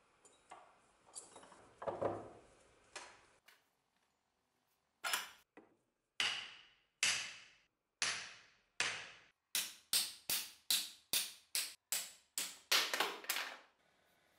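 Hammer blows driving the old wooden handle out of a rusty carpenter's axe head. A few scattered knocks and scrapes come first, then single blows about a second apart, then quicker blows, two or three a second, each ringing briefly.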